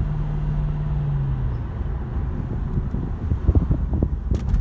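Mercedes-Benz C55 AMG's 5.4-litre V8 heard from inside the moving car: a steady low engine hum that dips slightly in pitch and fades out after about a second and a half. A low road rumble runs under it, with a few short knocks near the end.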